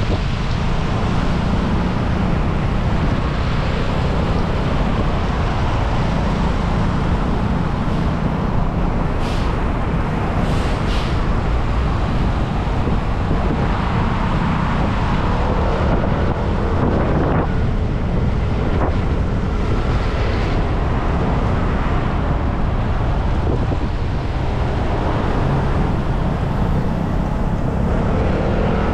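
Steady wind rush on the microphone of a moving motor scooter, over the scooter's running engine and the hiss of tyres on a wet road.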